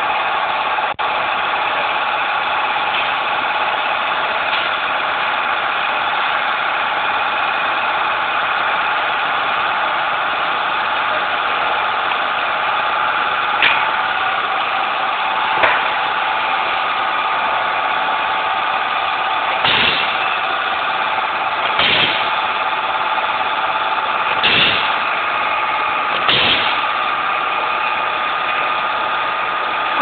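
Automatic rotary wire stripping machine running with a steady motor hum. In the second half its stripping head cycles six times, each stroke a short sharp clack, roughly two seconds apart.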